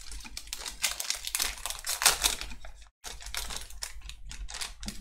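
Foil Pokémon booster pack wrapper crinkling and trading cards sliding and flicking out of it: a rapid run of small clicks and rustles, broken off briefly about three seconds in.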